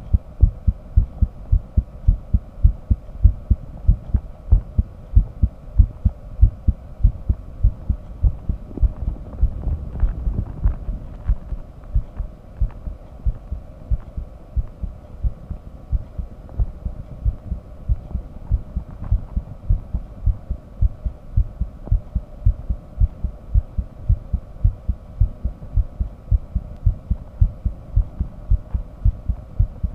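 Human heartbeat heard through a microphone used for auscultation: a long, even run of low lub-dub heart sounds, under a faint steady hum.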